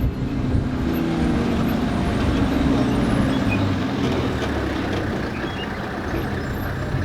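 A motor vehicle's engine running steadily with road and wind noise, heard from a vehicle on the move.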